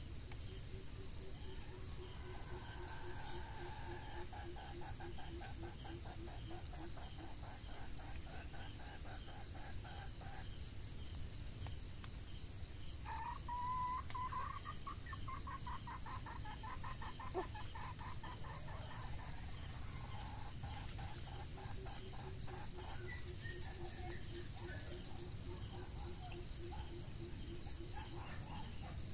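Red junglefowl clucking in long runs of rapid, evenly pulsed notes, three stretches of several seconds each, the middle one loudest. A steady high insect trill runs underneath.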